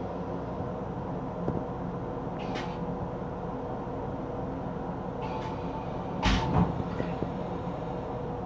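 Steady hum and rumble of a Metro-North M7 electric railcar heard inside its restroom, with a few light knocks and a louder double thump about six seconds in.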